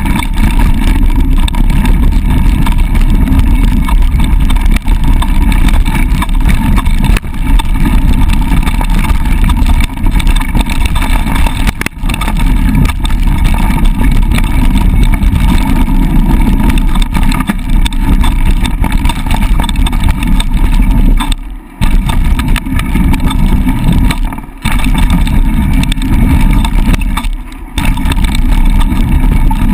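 Loud, steady wind noise buffeting the action camera's microphone as a mountain bike descends a dirt trail at speed, mixed with the rumble of the ride. The noise drops away briefly three times in the second half.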